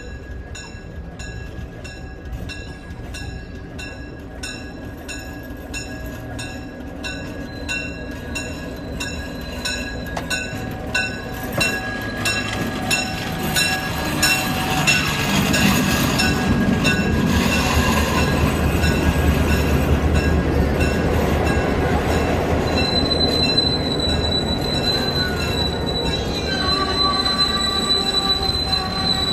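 Diesel-electric locomotive rolling slowly past, its engine and rumble growing louder as it nears. A regular beat about twice a second runs through the first part. Near the end, steel wheels squeal on the rails in a high, steady tone.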